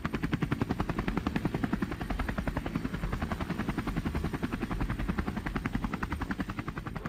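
Helicopter rotor blades making a rapid, steady chop over a low engine rumble, growing a little fainter toward the end.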